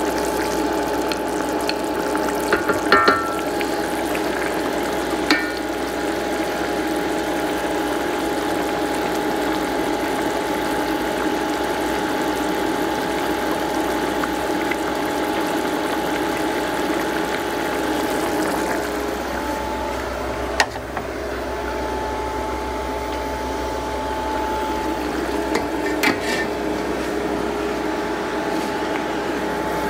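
Curry goat stew boiling hard in a pot, bubbling steadily over a constant hum, with a few light clicks and taps.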